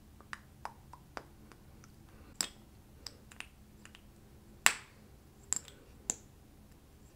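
About a dozen irregular sharp clicks and taps, spaced unevenly, the loudest one nearly five seconds in.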